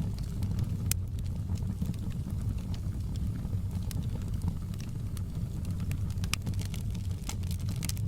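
Wood fire in a fireplace crackling: scattered sharp pops and snaps over a steady low rumble of the flames, the pops coming more thickly near the end.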